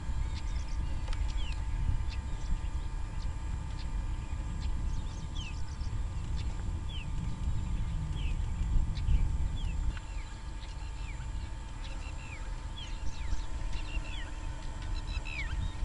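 Wild birds calling over and over with short, high, downward-sliding notes, over a constant low rumble and a faint steady whine.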